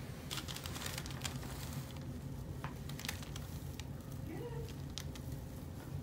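Soft rustling and crinkling from the paper-covered headrest, with a few faint clicks, as hands settle and position the head for a neck adjustment. A steady low room hum sits underneath.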